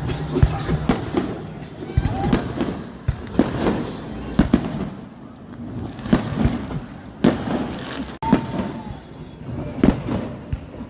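Fireworks bursting overhead: a rapid, irregular string of sharp bangs and booms, several a second in clusters, with music playing underneath.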